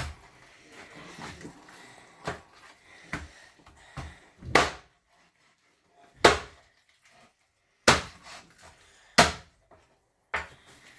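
Knife chopping chicken on a cutting board: about nine sharp, separate strikes at irregular gaps of a second or so, with faint handling noise between them.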